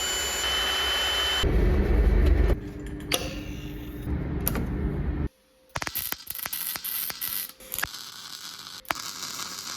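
Metalworking shop noise in quick cuts: a power tool running with a steady whine, then a rumbling stretch, then from about halfway a run of sharp crackles and clicks.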